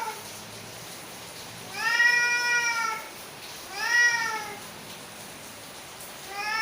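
Angry cat giving drawn-out, arching meowing calls in a confrontation between a tomcat and a female cat: a long call about two seconds in, a shorter one about four seconds in, and a third beginning at the very end.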